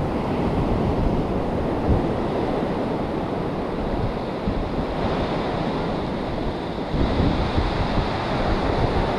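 Ocean surf breaking and washing up the beach, a steady rush of water, with wind buffeting the microphone.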